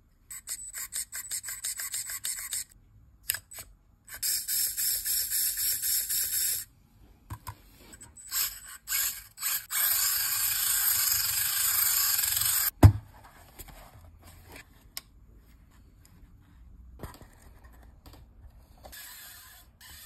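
Tiny electric motor and gears of a 1:100-scale micro RC van whirring in throttle bursts: short stuttering blips at first, then longer steady runs. About thirteen seconds in a single sharp knock cuts the run off, and the rest is much quieter.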